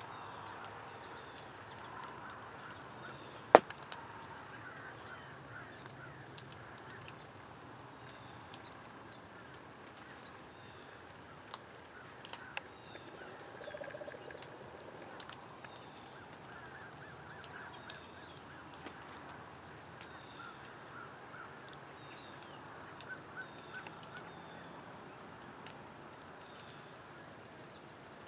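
Faint field ambience: a steady high-pitched insect hum with scattered short chirps. A single sharp knock sounds about three and a half seconds in, and a few smaller clicks come around twelve seconds.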